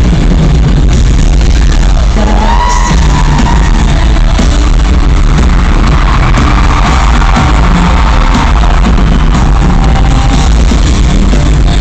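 Live pop concert music through an arena's PA system, very loud and heavy in the bass, recorded from the crowd.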